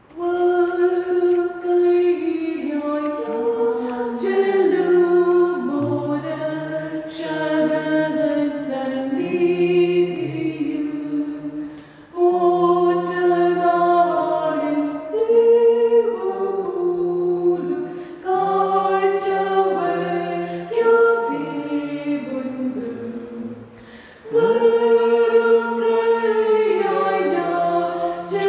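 Malayalam church hymn sung without accompaniment, in long lines with two short breaks between them.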